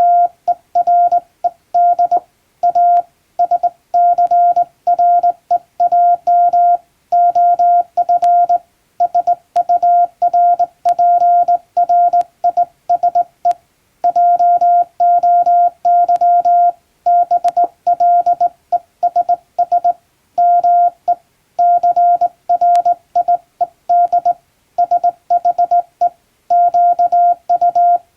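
English Morse code keyed by hand on a straight key: a single steady mid-pitched beep switched on and off in dots and dashes, in runs of letters broken by short pauses between words.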